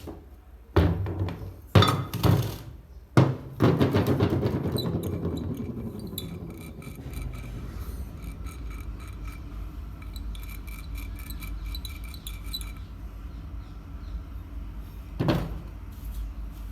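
Sharp metal knocks on ceiling fan motor parts during a bearing change, five in the first four seconds. Then a long fading run of quick light clicking with a faint ringing, and one more knock near the end.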